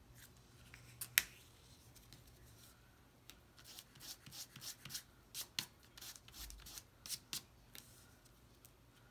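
Hands handling and pressing folded cardstock while gluing it: light paper crackles and clicks, one sharp click about a second in, then a run of quick clicks and rustles from about three to eight seconds in.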